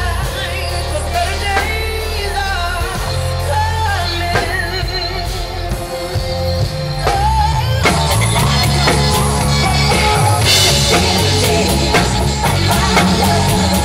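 Live rock music: a drum kit with cymbals played over a singing voice and deep bass. The drumming and bass get busier and a little louder about eight seconds in.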